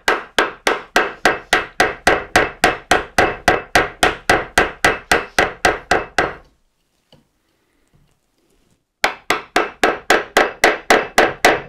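Mallet striking a wood chisel in rapid, even blows, about four a second, chopping waste out of a wooden joint. The strikes stop for a couple of seconds after about six seconds, then resume at the same pace.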